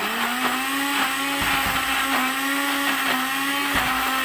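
Countertop blender motor starting up with a quick rise in pitch, then running steadily as it grinds a thick spice paste of chopped aromatics in oil with no water.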